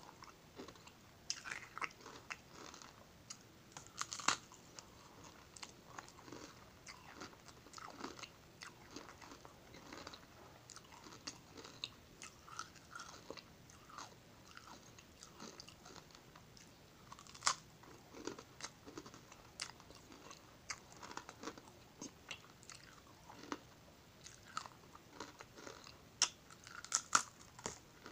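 A person biting and chewing a sugar-coated biscuit dipped in Nutella, close to the microphone: an irregular run of crisp crunches and clicks, the sharpest about four seconds in, midway, and a cluster near the end.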